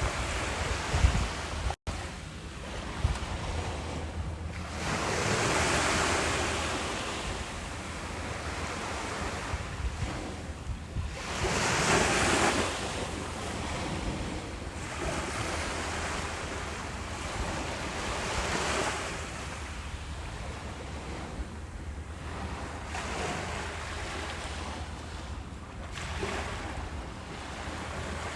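Ocean waves breaking and washing up the shore, surging every several seconds with the loudest wash about twelve seconds in. Wind rumbles on the microphone underneath.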